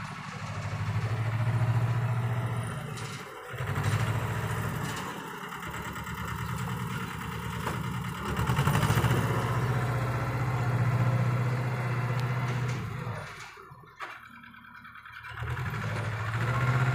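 Mini tractor loader's engine running, its note rising and falling under load in spells of a few seconds as the loader lifts and dumps soil, with brief drops about a fifth of the way in and again near the end.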